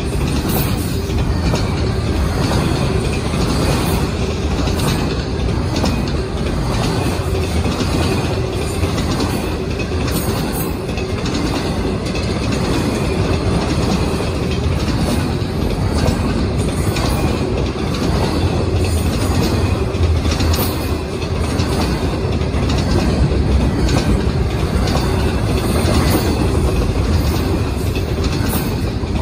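Double-stack intermodal freight cars rolling past close by: a steady, loud rumble of steel wheels on rail, with irregular wheel clicks over the joints.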